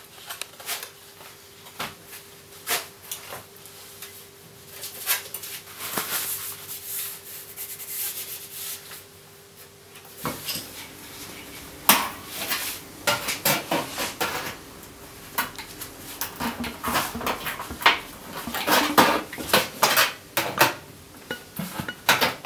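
Metal hand tools and a steel engraving plate handled on a workbench: a string of clinks, clicks and light scrapes, sparse at first and busier through the second half.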